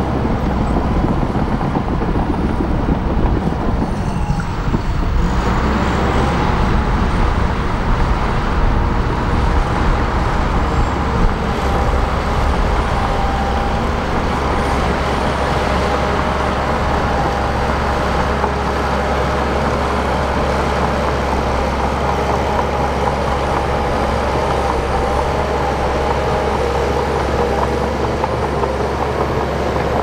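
Bulldozer's diesel engine running steadily as the machine works.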